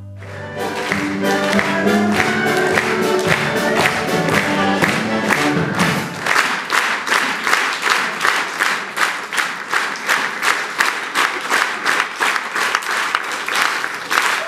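A live band plays the final bars of a song, with applause breaking in over it. The music ends about six seconds in, and the audience keeps clapping in unison to a steady beat.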